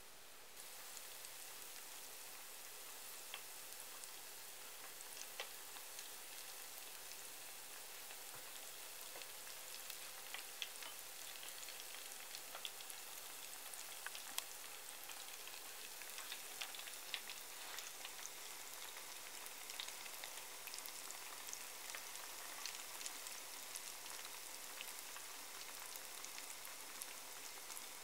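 Tempura-battered eggplant slices deep-frying in vegetable oil: a steady sizzle with frequent small crackles and pops.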